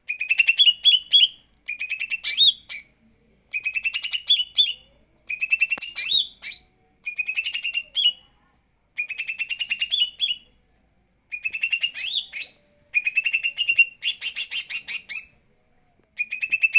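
Cucak ijo (green leafbird) singing in short repeated phrases with brief pauses between them. Each phrase is a fast run of chirping notes finishing in a few higher, rising whistles. This is the light song the keeper calls 'gacor tipis-tipis'.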